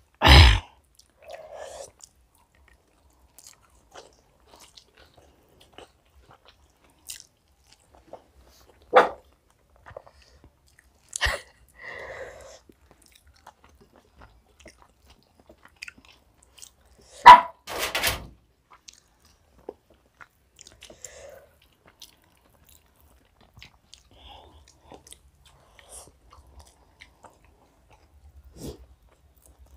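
Two people eating chicken biryani with their hands: quiet chewing and mouth sounds, broken by a few sharp knocks and clicks. The loudest knock comes about 17 seconds in.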